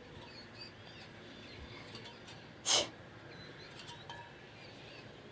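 Faint, high, short chirps from a pet bird, with one brief, loud, harsh burst of noise a little past halfway.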